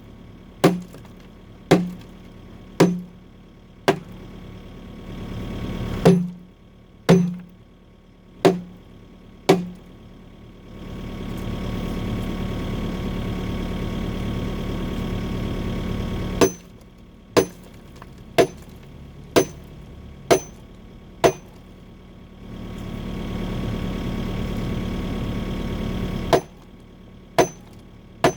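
Excavator bucket hammering down on concrete to break it: sharp impacts about once a second in runs of three to six. Between the runs the diesel engine and hydraulics run steadily and louder as the arm is worked.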